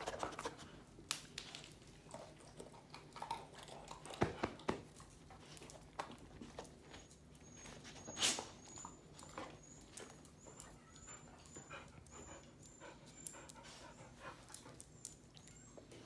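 Quiet sounds of dogs moving about and panting, with scattered light clicks and taps.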